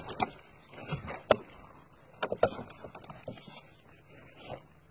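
Irregular knocks and clatter as a fishing net full of fish is hauled into a wooden boat, the loudest knock about a second in and a quick cluster of them around the middle.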